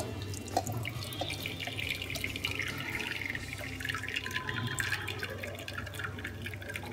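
Thick blended sweet-lime pulp and juice pouring and dripping from a steel mixer jar into a steel mesh strainer, a steady wet pouring with small clinks of the jar.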